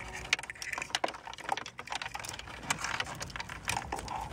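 Irregular plastic clicks and rattles from hands handling wiring-harness connectors and wires and plugging them together.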